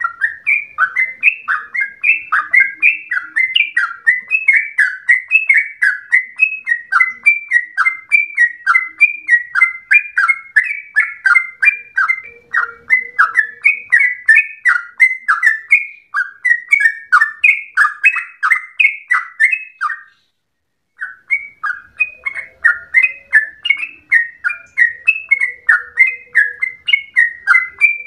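Yellow-vented bulbul (trucukan) singing a long, rapid run of quick falling notes, about four to five a second. The song breaks off for about a second some twenty seconds in, then carries on.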